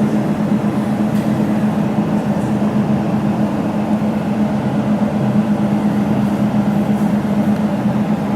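Laser jewelry welding machine running with its water-cooling pump on, a steady even hum.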